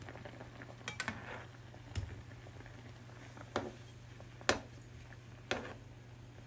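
Metal slotted spatula tapping and scraping against a nonstick frying pan as sausages are turned in simmering water: about six sharp clinks at uneven intervals, a quick pair about a second in. A faint steady hum and the low hiss of the simmering water lie underneath.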